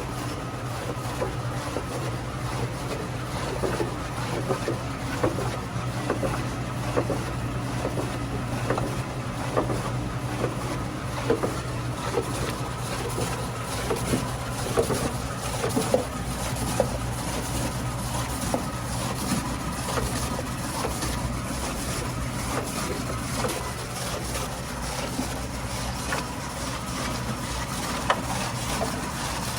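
Electric radish-slicing food machine running with a steady motor hum, with irregular clicks and knocks as the radish is cut into thin slices.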